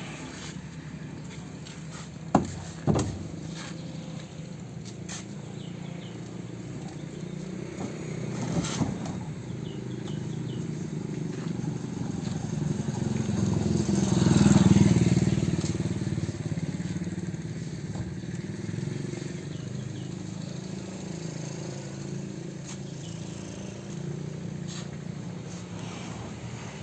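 Diesel generator set running steadily, with two sharp knocks about two and a half seconds in. Around the middle a louder sound swells to a peak and fades back to the steady running.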